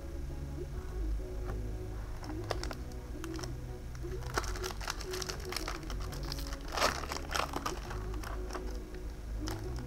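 Foil booster pack wrapper crinkling and crackling in the hands as a pack is handled and opened, in scattered sharp bursts that are loudest about seven seconds in.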